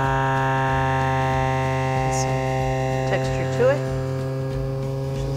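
Steady electrical hum with a buzz of many overtones, unchanging throughout. A short rising sound breaks in briefly a little past halfway.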